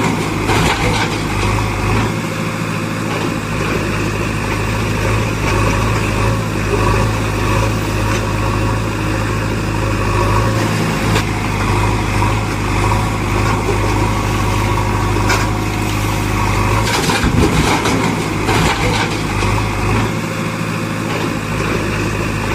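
A vehicle engine running steadily, with a few short clatters.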